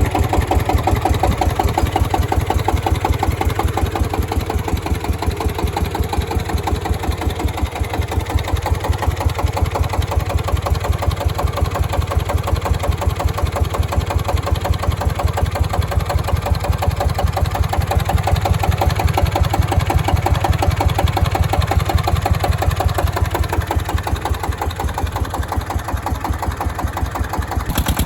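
SD1110 diesel engine of a homemade generator running steadily, with a rapid, even chug of firing pulses.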